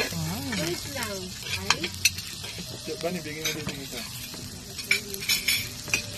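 Sisig sizzling on a hot sizzling plate while a metal spoon stirs it: a steady sizzle with scattered clinks and scrapes of the spoon against the plate.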